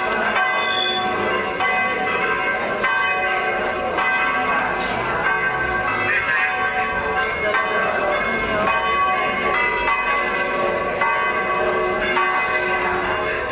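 Church bells ringing continuously, many overlapping notes sounding together and ringing on, with faint voices of a crowd underneath.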